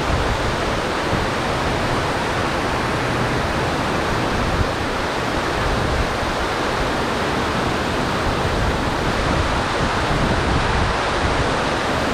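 Steady rush of fast-flowing water, running high after a storm.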